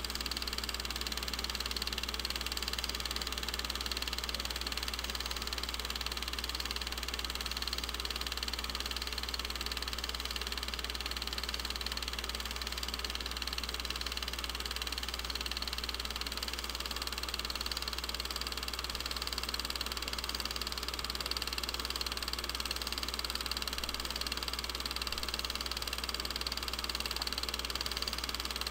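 Film projector running steadily, a continuous mechanical whirr and clatter over a low hum, as silent 8mm home-movie film is played back for transfer.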